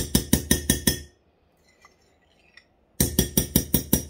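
Metal spoon rapped quickly and repeatedly against the rim of a glass mixing bowl, ringing with each strike, to knock off clinging melted butter. One run of taps stops about a second in and a second run starts about three seconds in.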